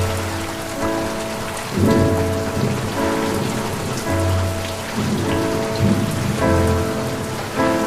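Steady rain hiss with low rolls of thunder, the strongest about two seconds in. Over it a soft pitched sound, most likely a music bed, repeats a held chord about once a second.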